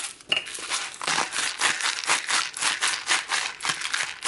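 Kirkland Himalayan pink salt grinder being twisted: a quick run of dry, rattling crunches as the salt crystals are cracked, about seven twists.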